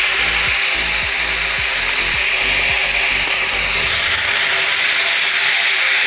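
Steady, loud machine noise with a rushing quality. A low rhythmic pulse about twice a second runs under it and fades out about four seconds in.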